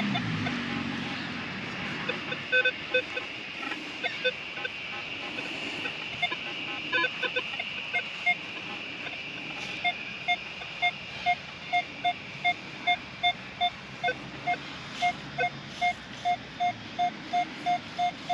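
Minelab Manticore metal detector giving short target beeps of differing pitch as it sweeps over the ground. From about halfway it settles into an even run of beeps, about two a second, over a steady background hiss.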